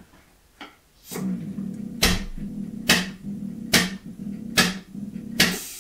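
Hydraulic hand pump being worked in strokes a little under a second apart, about five in all, building pressure in a torque-test rig's ram, over a steady low hum. The first second is nearly quiet.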